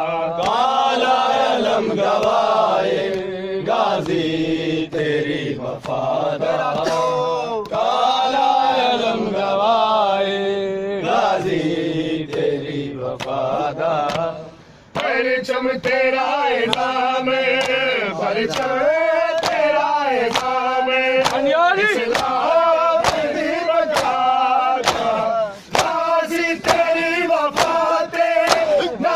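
Men chanting a noha, a rhythmic Shia mourning lament. A little before halfway it breaks off for a moment; after that, sharp hand slaps of matam (chest-beating) keep time at about two a second.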